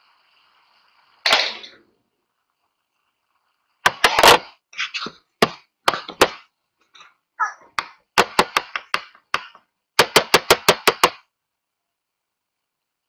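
Sharp taps and knocks of small objects being handled: one knock about a second in, scattered taps a few seconds later, then a quick run of about seven taps.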